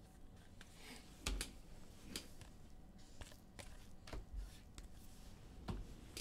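Scattered faint taps and clicks, about eight in all at uneven spacing, with the loudest a little over a second in and near the end: small objects being handled at close range.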